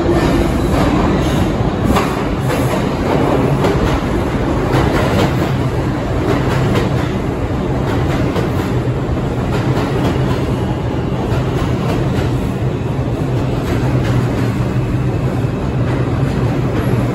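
New York City subway train running into the station along the platform. Wheels clack over the rail joints, with dense clicks in the first half, over a steady rumble and low motor hum that continues as the cars go by.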